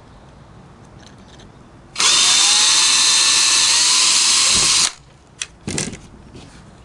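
Cordless drill running once for about three seconds, starting about two seconds in, as a 3/32-inch bit bores a screw hole through a plastic salmon flasher. A couple of short knocks follow after it stops.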